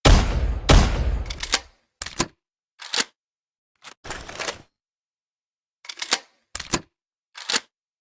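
Double-barrel shotgun sound effect: two loud blasts under a second apart, each with a long decaying tail, followed by a series of short, sharp mechanical clicks and clacks spread over the next several seconds.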